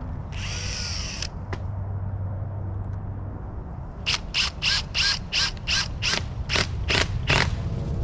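Cordless drill driving screws through bark into a wooden post: one short whir about half a second in, then about eleven quick pulses of the motor, roughly three a second, from about four seconds in.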